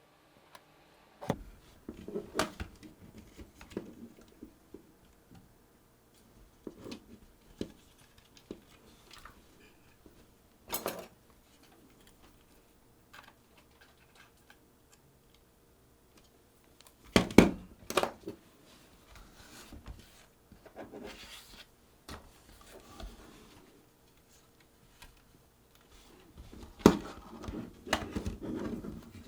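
Small hard parts of a camcorder recording unit being handled on a workbench: scattered clicks, taps and light scraping, with louder knocks about 17 seconds in and again near the end.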